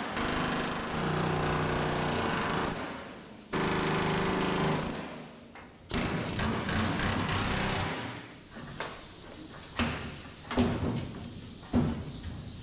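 Pneumatic air chisel with a flat chisel bit hammering rapidly against steel sheet metal in three bursts of a few seconds each, chiselling the old quarter panel off the car body. In the last few seconds there are a few separate knocks instead.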